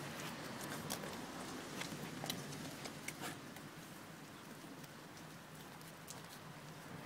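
A Komondor dog eating, with irregular soft clicks and crunches of chewing.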